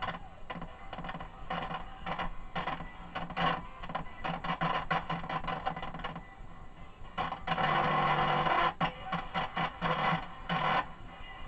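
Ekco MPT333 transistor radio's speaker output cutting in and out in short, irregular bursts as its circuit board is prodded, with a longer burst about two-thirds of the way through: the sign of an intermittent fault in the set.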